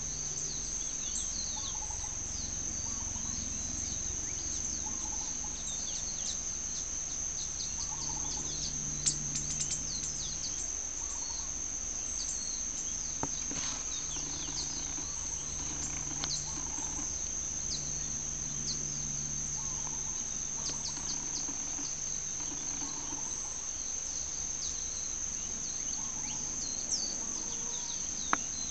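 Continuous high-pitched insect trill, as of crickets, over chickens softly clucking now and then as they forage, with a few sharp ticks.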